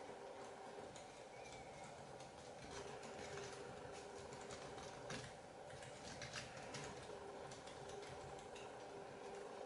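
Faint crinkling and light clicks of a square of origami paper being folded and creased by hand, in scattered bursts with a few sharper crackles around the middle, over a steady low hum.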